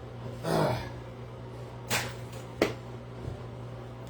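A short falling whoosh, then two sharp knocks about two-thirds of a second apart, over a steady low hum.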